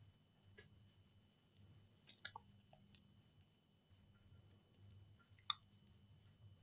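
A few faint clicks and scrapes of fingers working a rubber strain-relief boot onto a repaired USB-C charger cable plug, sharpest at about two seconds in and again near five and a half seconds. A low steady hum lies underneath.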